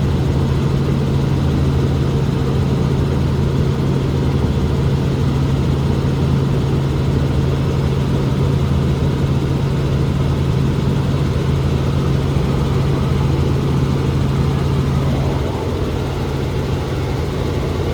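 Helicopter engine and rotor running in steady flight: a loud, even drone with a strong low hum. About fifteen seconds in, the hum drops away and the sound gets slightly quieter.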